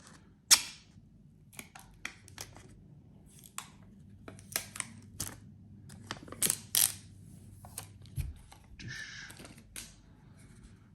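Hard plastic clicks, taps and scrapes from a Ring video doorbell being handled and pried apart by hand: a sharp click about half a second in, then scattered clicks in small clusters, a dull thump and a short scrape near the end.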